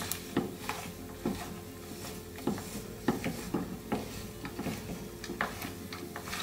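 Silicone spatula stirring and scraping a sticky mix of ground dates and chopped dry fruits around a frying pan: a run of short, irregular scrapes, about two a second.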